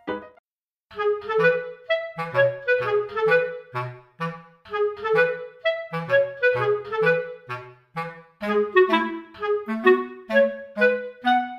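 Background music: a melody over short, evenly paced bass notes, starting after a brief gap about a second in.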